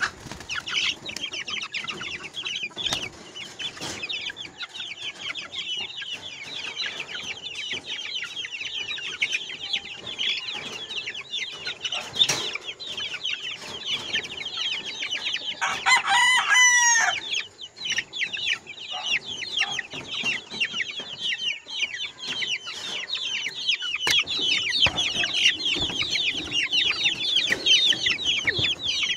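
A flock of month-old chicks peeping and cheeping continuously in many short high calls. About halfway through, a rooster crows once, briefly.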